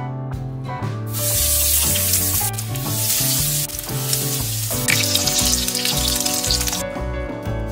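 Food sizzling as it fries in a hot pan. The sizzle starts about a second in and stops near the end, over background music.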